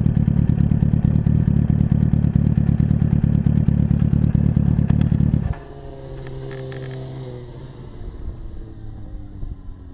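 Yamaha YZF-R1 inline-four engine idling with a rapid, steady exhaust beat, then switched off about five and a half seconds in, the sound cutting out suddenly. Afterwards a much quieter hum falls slowly in pitch.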